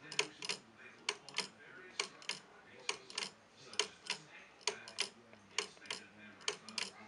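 Escapement of a wooden pendulum wall clock ticking: the wooden escape wheel's teeth click against the pallets in close pairs, about one pair a second, with a hollow wooden sound.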